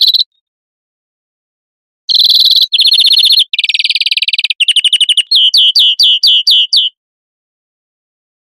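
European greenfinch song, loud. A short phrase ends just as it starts. Then, about two seconds in, a string of fast rattling trills ends in a run of about eight short falling notes at roughly five a second.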